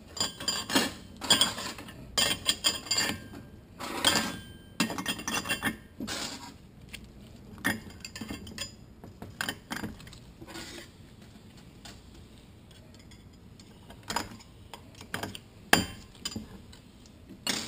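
Steel clutch plates clinking against each other and the metal clutch drum as they are stacked into a Toyota A340 automatic transmission's clutch pack. There is a quick run of clinks for the first few seconds, then scattered single clinks.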